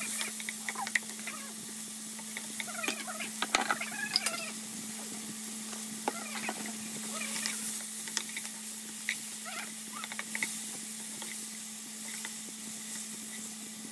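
Chopped onion, tomato, garlic and scallion sizzling in oil in a nonstick frying pan while they are stirred, with scattered clicks and scrapes of the utensil against the pan. A steady low hum runs underneath.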